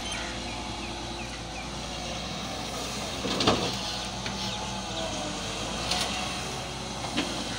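Volvo EW145B wheeled excavator's diesel engine running steadily as the loaded bucket is swung over a tractor trolley and emptied. A single loud knock about three and a half seconds in, and lighter clicks near the end.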